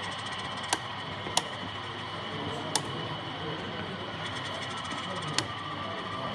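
Steady background hubbub of a crowded exhibition hall with indistinct voices, broken by four sharp clicks, three of them in the first three seconds.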